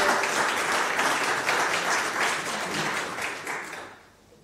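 A small audience applauding, a dense patter of hand claps that fades out near the end.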